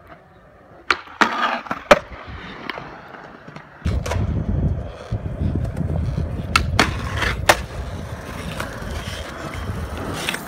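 Skateboard on concrete: several sharp clacks of the board in the first two seconds, then from about four seconds in the steady rumble of the wheels rolling, broken by more clacks.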